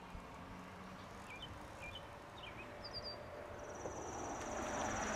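Outdoor ambience by the water: a few short bird chirps, then a high, fast insect-like trill lasting about two seconds. A broad rushing noise swells near the end.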